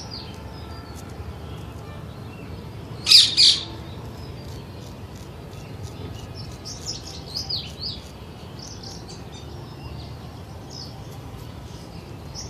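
Birds chirping with short, falling chirps, and two loud calls in quick succession about three seconds in.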